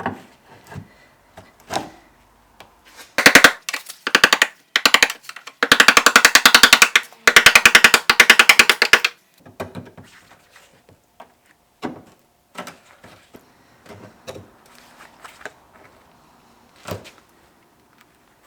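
Pneumatic air chisel hammering in rapid-fire bursts, chipping old JB Weld off the rusted trunk seam of a BMW E30. There is a short burst about three seconds in and two longer ones from about six to nine seconds, with scattered single knocks in between.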